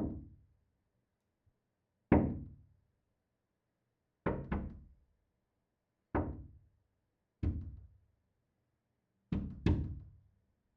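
Hand knocking on glass: single knocks and quick double knocks spaced about two seconds apart, eight in all, each with a short ring that dies away.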